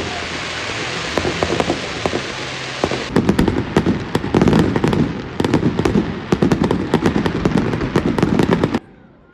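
Fireworks going off: a dense crackling hiss, then from about three seconds in a rapid, loud run of bangs and crackles, which cuts off suddenly near the end.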